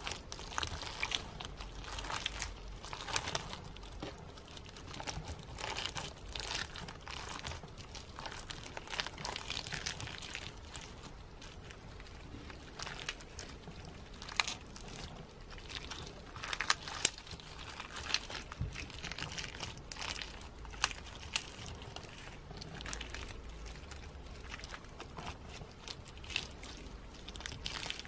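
Slime packed with silver snowflake sequins being squeezed and kneaded by hand, giving a continuous crunchy crinkling with irregular sharp crackles, one louder crack near the middle.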